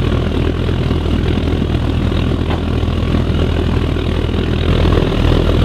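A 300 kW waste oil burner with its air blower firing flat out into a brick furnace. The flame and blower make a loud, steady roar with a low hum underneath.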